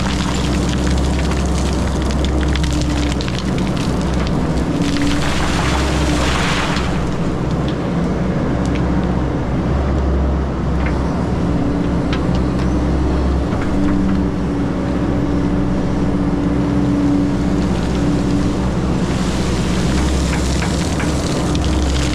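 XCMG 180 hydraulic excavator's diesel engine working under varying load as it moves material, the engine note shifting in pitch and strength as the hydraulics take load, with bursts of rushing noise over it.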